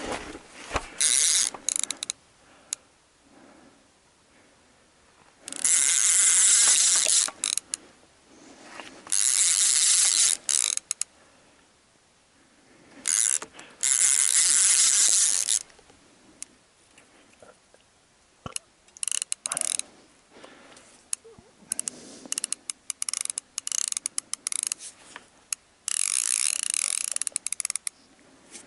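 Fishing reel ratcheting in repeated bursts of one to three seconds, with quiet gaps between, as line is wound in on a hooked lake sturgeon during the fight.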